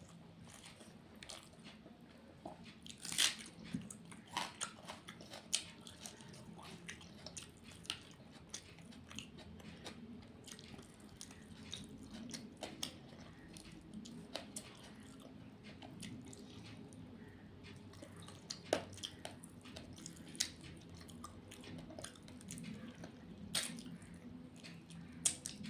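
A person eating rice and fish-head curry close to the microphone: chewing and mouth sounds, with scattered sharp clicks and crunches, a few of them louder.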